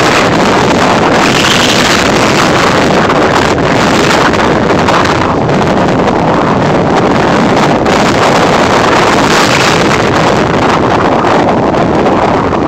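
Strong wind buffeting a phone's microphone: a loud, steady rushing noise.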